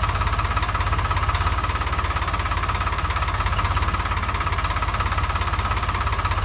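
Homemade model Swaraj 855 4x4 tractor running steadily while pulling a trolley heaped with soil: a rapid, even low chugging like a diesel engine, with a steady whine over it.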